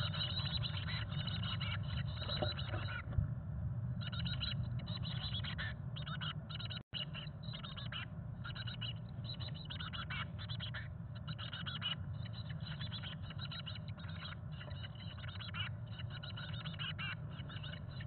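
Chickadee nestlings begging in the nest box: a stop-start run of short, high, buzzy calls over a steady low hum. The sound cuts out for an instant about seven seconds in.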